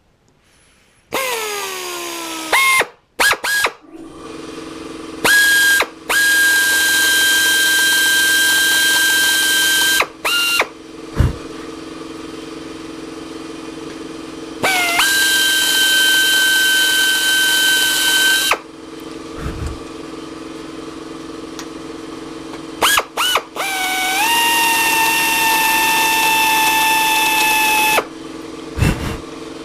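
Drill running in several bursts of a few seconds each, a high whine over a hiss, its pitch dipping as it loads up. This is drilling out badly set aluminium rivets. A steady low hum runs underneath.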